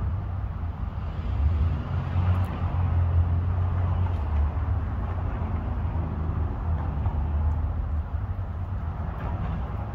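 Steady low rumble of motor-vehicle noise with a constant low hum.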